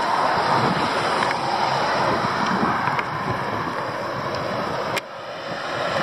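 Steady rushing road noise of traffic on an asphalt mountain road, mixed with wind buffeting the microphone. A sharp click about five seconds in; the noise drops, then builds again as a car approaches.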